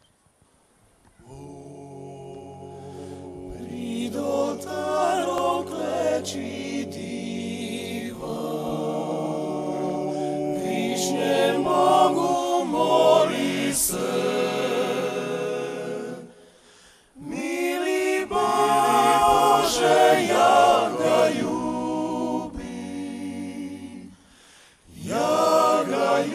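Male klapa, a Dalmatian a cappella vocal group, singing in close harmony with long held chords. The singing begins softly about a second in and swells, with two brief breaks between phrases.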